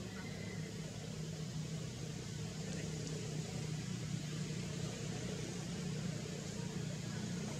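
Steady low droning hum with a faint hiss over it, unchanging throughout, with no distinct event standing out.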